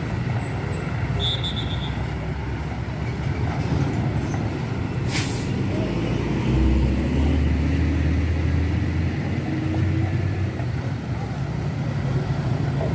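Heavy diesel trucks and buses running past close by: a continuous low engine rumble that gets louder and deeper about six and a half seconds in. A short hiss cuts through about five seconds in.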